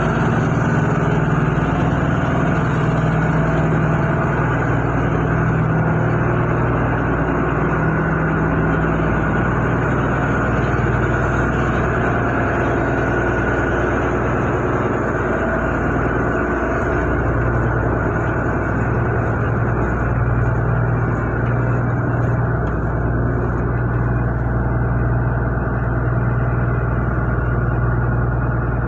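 A steady low mechanical hum that holds for the whole stretch, its pitch shifting slightly about halfway through.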